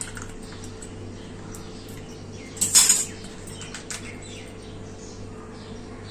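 Plastic milk pouch being handled and torn open at the corner, with one short, loud crackle of the plastic a little under halfway through, over a steady low hum.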